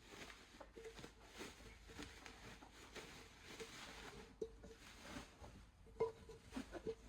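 Faint rustling of packaging and light knocks of die-cast cookware being handled and unpacked, each knock with a brief ring; the loudest knock comes about six seconds in.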